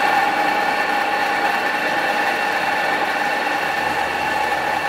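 Horizontal metal-cutting bandsaw running, its blade cutting into a thick-walled steel tube (90 mm across, 5 mm wall): a loud, steady sawing noise with a high whine.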